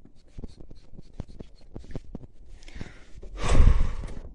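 Handling noise from a handheld phone camera being carried on the move: irregular small clicks and taps, then a louder rubbing rustle against the microphone about three and a half seconds in.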